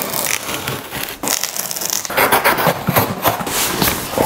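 Knife slicing through the packing tape and cardboard along a box seam, then cardboard scraping, crackling and knocking as the box lid is worked open.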